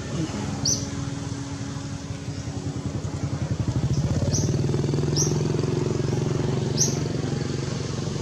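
A small engine running, with a fast pulsing beat, growing louder about three to four seconds in and then holding steady. A few short high chirps sound over it.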